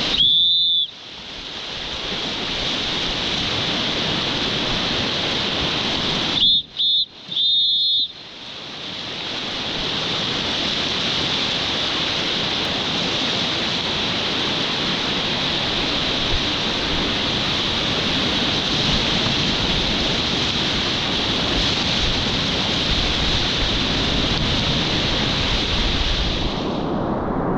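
Whitewater rapids rushing steadily, picked up by a GoPro camera's microphone. Just after the start, and three times in quick succession about seven seconds in, the rush briefly drops out and a short high whistle sounds.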